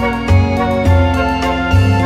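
Background music: sustained pitched notes over a repeating low bass line.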